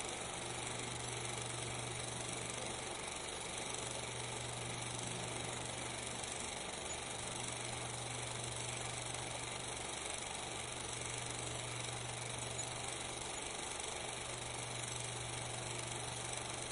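16 mm film projector running: a steady mechanical hum and rattle with hiss, unchanged through the picture cuts, laid over silent footage.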